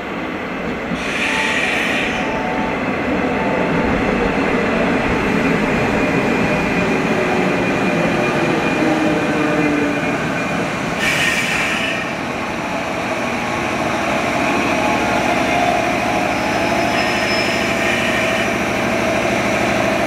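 JR 201-series electric train pulling into a station: steady wheel and running noise with a faint gliding electric whine from its armature-chopper control. Two short high hisses come about a second in and again about eleven seconds in.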